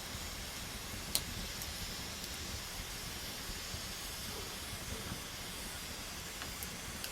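Wood campfire burning with a steady hiss and a few sharp crackling pops, the loudest about a second in.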